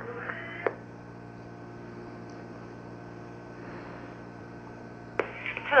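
An open telephone line on hold: a steady electrical hum with faint hiss. There is a click a little over half a second in and another near the end, just before the line is answered again.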